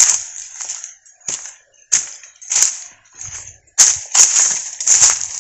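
Footsteps crunching on a dry forest path, a sharp crunch with each step, about one and a half to two steps a second.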